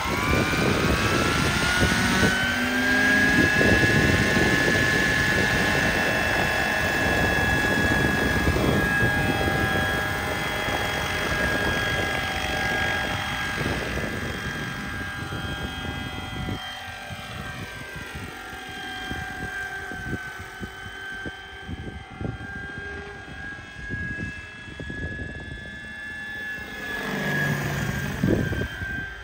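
1:6 scale Vario Bo 105 model helicopter: its high whine climbs in pitch over the first couple of seconds as the rotors spool up, then holds steady over a rapid rotor beat through liftoff and flight. Near the end the pitch sweeps down and back up with a louder swell as it passes overhead.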